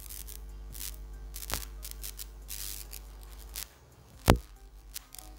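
Two sharp clicks about three seconds apart, over faint steady background music and a low hum that fades out a little past halfway.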